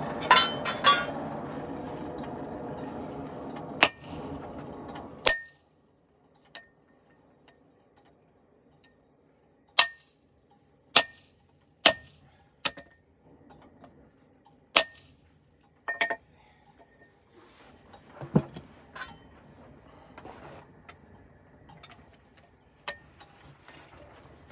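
Hand hammer blows on a hot-cut tool cutting through a glowing damascus billet on an anvil. There are about a dozen sharp metallic strikes with a short ring, spaced a second or more apart. A steady mechanical drone underneath cuts off suddenly about five seconds in.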